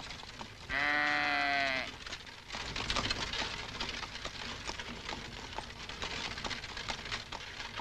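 A single bleating animal call, about a second long, followed by a steady, crackly background noise.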